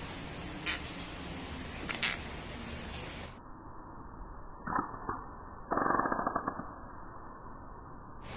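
A gecko's sharp defensive clicks: single clicks in the first couple of seconds, two more near the middle, then a short burst of rapid clicking about six seconds in.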